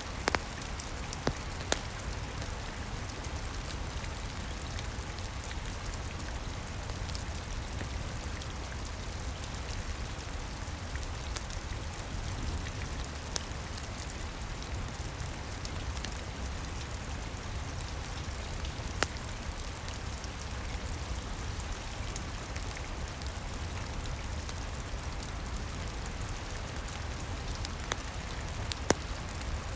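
Steady rain with a low rumble, broken by a few isolated sharp pops of a wood fire crackling.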